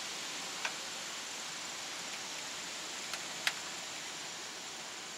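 Steady hiss of strong wind through the trees, with three faint sharp clicks: one under a second in and two close together about three seconds in.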